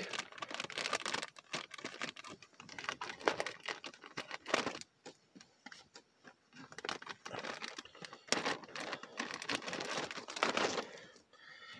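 Clear plastic packaging bag crinkling and rustling as it is handled, in irregular crackles that ease off for a couple of seconds midway.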